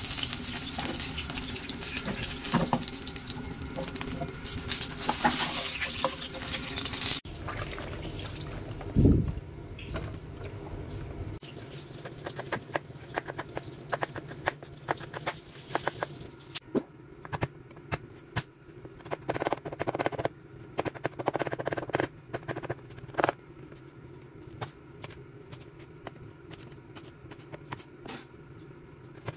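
Whole small eggplants frying in oil in a pan with a steady sizzle for the first several seconds. After a low thump, a chef's knife chops shallots and green chilli on a wooden cutting board in irregular sharp taps.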